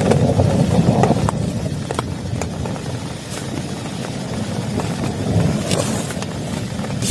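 Low rumble of thunder rolling on and fading, swelling again briefly past the middle, over steady heavy rain with scattered sharp drop hits.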